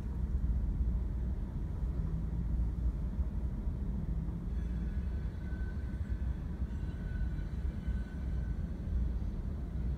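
Freight train with GE Dash 9 and ES40DC diesel locomotives rolling past, a steady low rumble, with a faint high tone through the middle.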